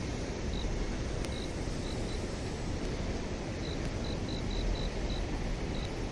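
Steady background rumble and hiss, heaviest in the low end, with faint, very short high chirps repeating at uneven intervals.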